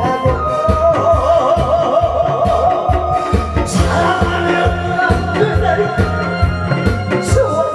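A song sung with strong vibrato over a backing track with a steady drum beat.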